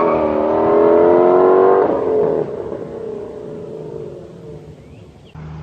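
2017 Ford Shelby GT350's 5.2-litre flat-plane-crank V8 accelerating hard, its pitch dropping at a gear change right at the start and then climbing again. About two seconds in the sound falls away and fades, as the car pulls away. A steady low hum starts suddenly near the end.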